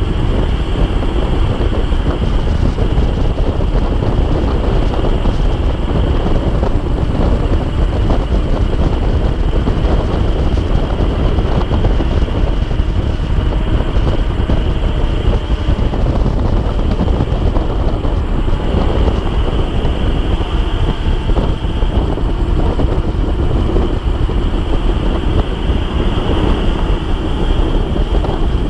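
Wind rushing and buffeting over the microphone of a camera on a road bike descending at about 80 km/h, a loud steady rush with a thin high whine running through it.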